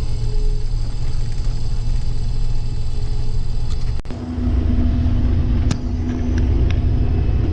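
Combine harvester running: a steady engine and machinery hum that breaks off about four seconds in and gives way to a louder, deeper rumble with a steady drone, with a few light clicks after it.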